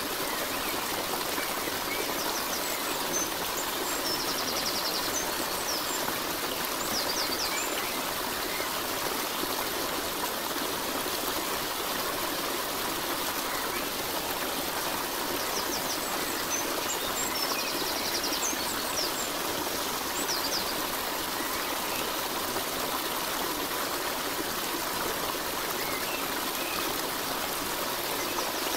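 Steady rushing of running water, like a stream, with a few faint high chirps twice, a few seconds in and again past the middle.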